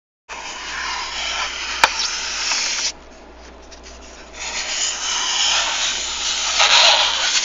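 Dry scraping, rubbing noise made as a studio sound effect, in two long stretches with a quieter lull between them and a sharp click about two seconds in.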